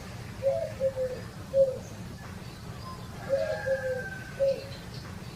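A dove cooing: two phrases of about four low coos each, one starting about half a second in and the other a little after three seconds.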